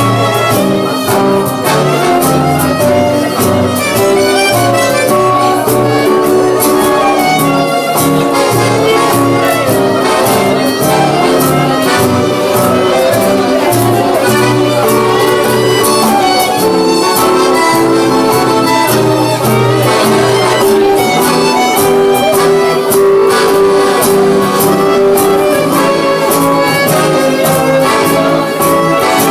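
Acoustic band playing an instrumental passage: bowed violin over strummed acoustic guitars, accordion and a steady cajon beat.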